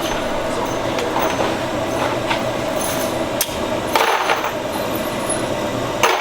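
TIG welder arc hissing steadily while tacking and welding a stainless exhaust pipe extension, with a few sharp metallic clinks.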